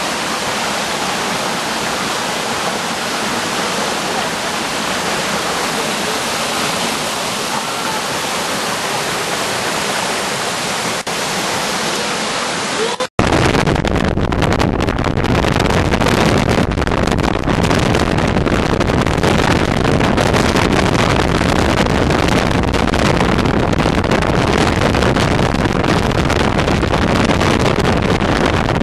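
Waterfall rushing steadily, an even hiss of falling water. About halfway through it cuts abruptly to a louder, rumbling rush with strong low end.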